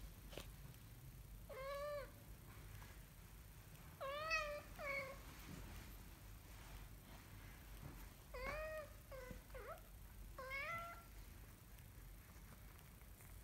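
Tabby kitten mewing: about seven short, high mews, each rising then falling in pitch, some in quick pairs, while an adult cat holds and grooms it.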